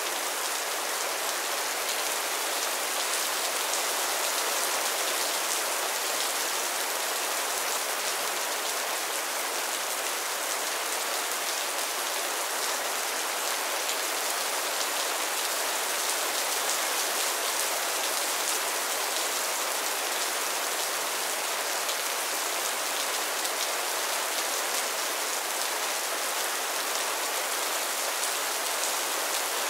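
Heavy rain falling steadily: a dense, even hiss of countless drops that holds at a constant level throughout.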